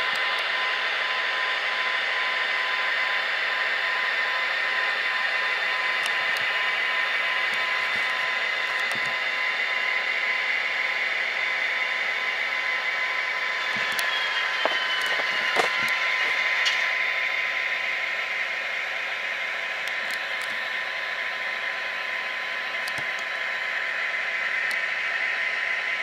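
ESU LokSound sound decoders in model Kato SD40-2 locomotives playing EMD diesel prime-mover sound through their small speakers: a steady engine drone. A few sharp clicks and a short falling tone come about halfway through, after which it runs a little quieter.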